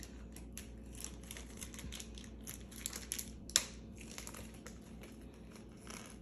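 Close-up crinkling of plastic with scattered small clicks and taps as hands handle small parts, with one sharper click about three and a half seconds in.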